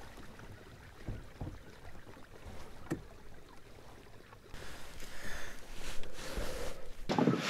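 Kayak gear handling on a calm lake: a few light knocks over a faint background of water, with louder rustling and handling near the end.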